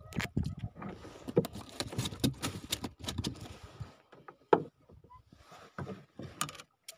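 Handling noise on a wooden fishing boat: irregular clicks, knocks and rattles as a caught fish is gripped and unhooked, busiest in the first few seconds and sparser after.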